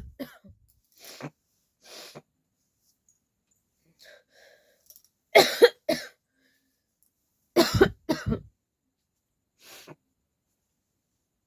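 A person coughing in short fits: two loud bursts of two or three coughs each, about five and a half and about eight seconds in, with fainter small coughs and breaths between.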